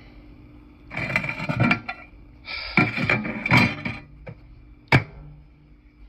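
Clattering and rattling from an old microwave oven being handled, in two bursts about a second and two and a half seconds in, followed by a small click and one sharp knock about five seconds in.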